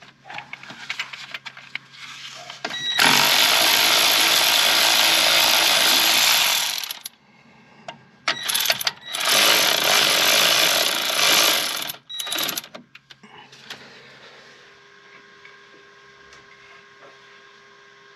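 Impact wrench running on the front brake caliper bolts to undo them: two runs of about four seconds each, the first about three seconds in and the second about eight seconds in, with a few short bursts after it. Tools clatter as the socket is fitted.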